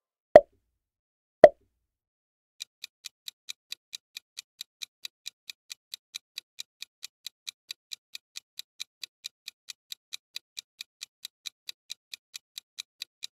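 Two quick pop sound effects about a second apart, then a clock-ticking countdown effect that starts about two and a half seconds in: light, even ticks at about four to five a second.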